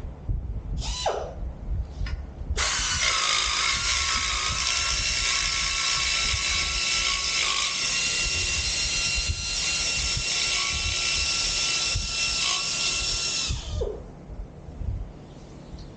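Handheld power cutting tool working on the switch panel. It gives a short burst about a second in, then runs with a steady high whine for about eleven seconds and winds down near the end.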